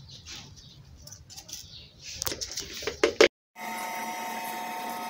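Light rustling, then a quick run of sharp clicks and knocks against an aluminium cooking pot while salt is added to the taro, loudest about three seconds in. After a brief cut, a steady hiss with faint steady tones.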